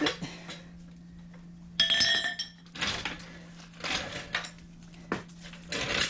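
Metal clinks and clatter as a small jack is pulled out from under a motorcycle's rear wheel, its axle already removed. One sharp, ringing metallic clink comes about two seconds in, followed by shorter clatters and a click near the end.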